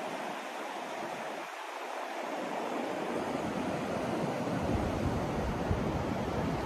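Steady rushing white noise, an even hiss, with a deeper rumble coming in about two-thirds of the way through.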